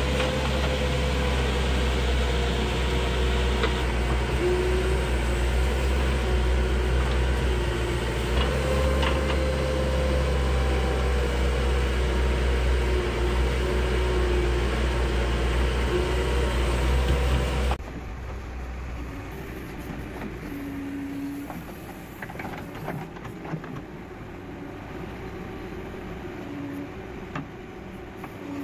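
Backhoe loader's diesel engine running steadily under load while digging, with a higher tone that comes and goes as the arm works. About 18 seconds in, the sound drops suddenly to a quieter, thinner take of the machine working.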